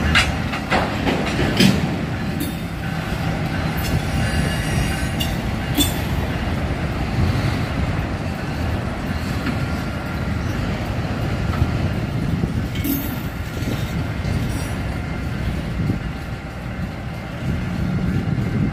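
Autorack freight cars rolling slowly past on yard track, their steel wheels giving a steady rumble with scattered sharp clicks and faint wheel squeal.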